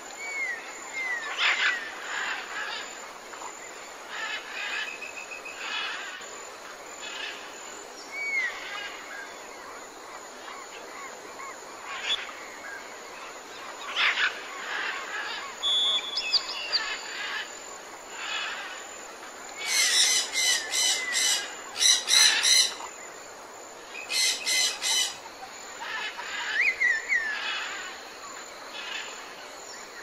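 Several birds calling: short chirps and downward-sliding whistles repeating throughout, with louder runs of rapid repeated calls about two-thirds of the way in.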